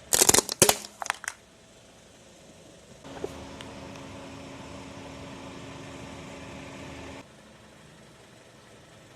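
Car tyre rolling over and crushing a small electronic gadget: a quick cluster of loud cracks and snaps of breaking plastic and glass in the first second and a half. A few seconds later a steady low hum comes in for about four seconds, starting and stopping abruptly.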